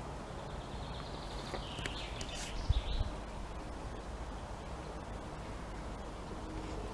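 Steady outdoor background noise with a few faint bird chirps about one to three seconds in, and a single low thump near the middle.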